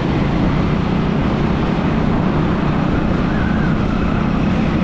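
Motorcycle ridden at a steady cruise along a city road: its engine runs evenly under the constant rush of road and traffic noise.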